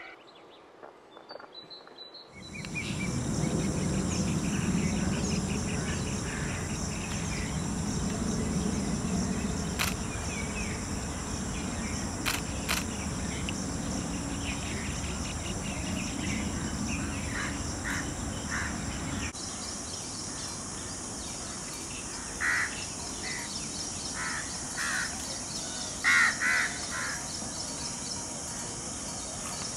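Outdoor natural ambience: a steady low rumble and a faint high hiss that come in about two seconds in, with scattered short bird calls in the second half, the loudest a few seconds before the end.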